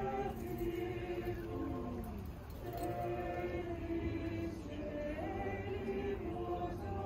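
A group of voices singing a Marian hymn in slow, held notes.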